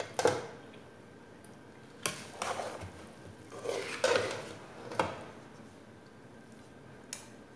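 Metal spoons clinking and scraping against aluminium cooking pots as cooked noodles with vegetables are lifted and mixed. The clatters come separately, about five of them, between quieter stretches.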